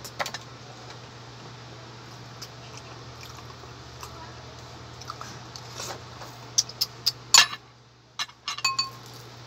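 Close clicks and taps of quail eggs being cracked and peeled by hand, over a steady low hum. A cluster of sharp clicks comes about seven seconds in, and a short ringing clink of tableware comes near the end.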